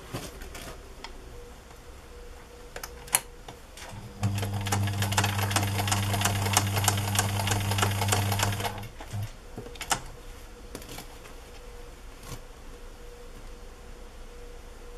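Domestic electric sewing machine running for one stretch of about four and a half seconds, starting about four seconds in: a steady motor hum with a rapid, even ticking of the needle stitching down the fabric binding. A few separate sharp clicks come before and after it.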